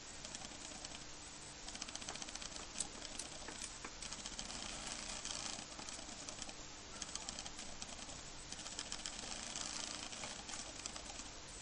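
A cockatiel pecking and nibbling with its beak: dense, rapid small clicks and ticks that go on throughout, over a faint steady hum.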